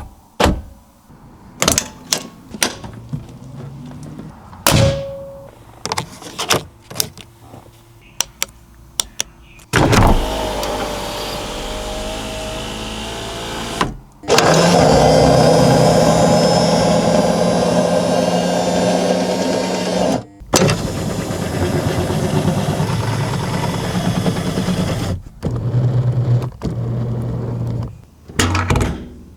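A series of separate clicks and knocks, then the 1996 Porsche 911 Carrera's air-cooled flat-six starting about ten seconds in and running. The running engine is heard in several clips split by brief breaks, one louder than the others.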